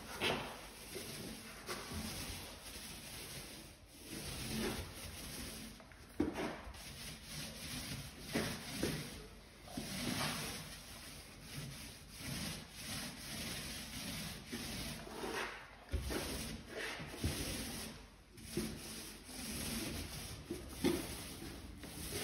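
Mini paint roller rolling wet paint into the inside corner of a wall: a rubbing swish that comes in repeated strokes.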